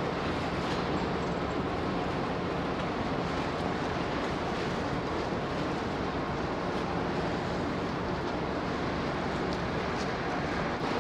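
Steady drone of the Ogasawara Maru passenger ferry's engines and machinery, with wind and water noise.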